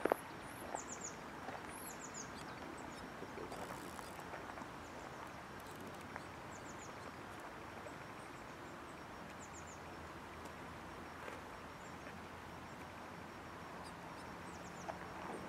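Faint steady outdoor background noise with a small bird's high, quick chirps in clusters of three or four notes, repeating every few seconds. A sharp click right at the start.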